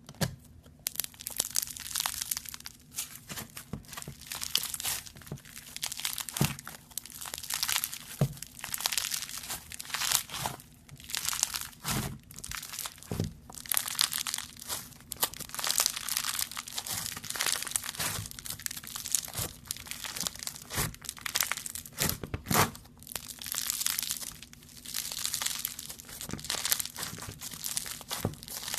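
Slime being squeezed, poked and stretched by hand, giving a dense, continuous run of sharp crackling and crunching clicks.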